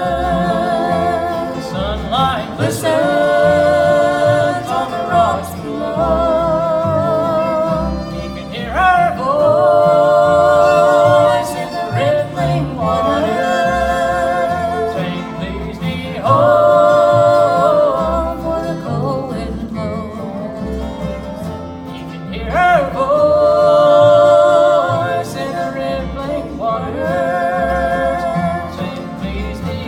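Bluegrass band playing the song's closing passage: a lead line in long held notes with vibrato, sliding up into each phrase, over acoustic accompaniment and steady bass.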